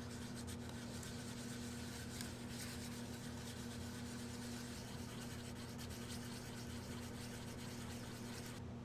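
Hand-sanding a small cast resin dome with sandpaper: steady scratchy rubbing that stops abruptly near the end.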